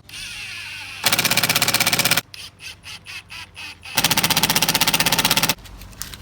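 Cordless impact driver hammering a lag screw into wood. There are two long bursts of rapid hammering, about a second in and again about four seconds in, with short stop-start bursts between them.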